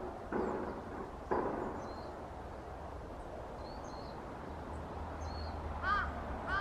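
Work noise from a nearby factory: two rushes of noise that start suddenly in the first second and a half, then a steady low hum. Small birds chirp faintly throughout, and near the end a bird starts a repeated call.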